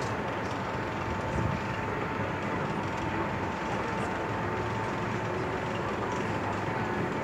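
Chair swing ride running: a steady mechanical hum with a constant high whine, and a few faint clicks.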